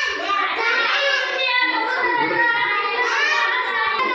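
A child singing a Hindi children's rhyme in a sing-song chant, voice continuous with no break.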